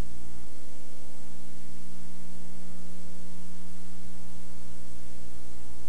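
Steady electrical hum and buzz with a full layer of hiss, the noise of an old analog video or tape transfer rather than any sound from the scene. The deepest part of the hum drops away about half a second in.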